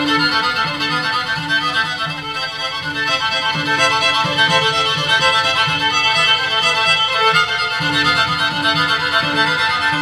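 Violin and cello bowing in a live chamber-music performance, steady and continuous, with a short low note figure that keeps recurring.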